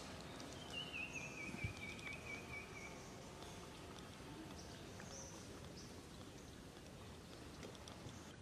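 Quiet outdoor ambience. Near the start a high, wavering animal call slides slowly down in pitch over about two seconds, and a few faint high chirps come later.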